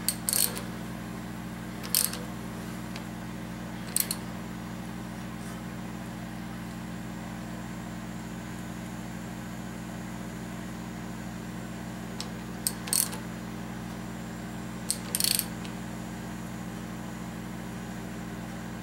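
Ratchet wrench clicking in short, spaced bursts, about six in all, during a valve adjustment on an engine, over a steady low hum.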